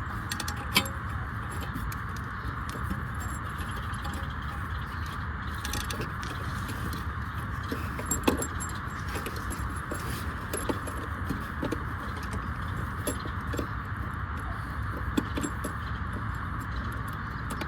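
Scattered small clicks and light rattles of cables and parts being handled during the installation, over a steady hiss.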